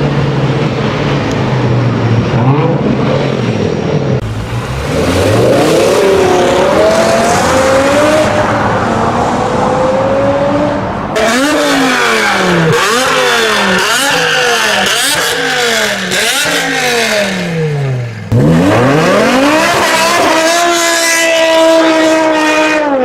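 BMW E60 M5's S85 naturally aspirated V10 revving and accelerating hard, heard in several spliced clips. Its pitch swings up and down, then climbs and drops in a quick run of revs, and near the end it sweeps up to a high steady note.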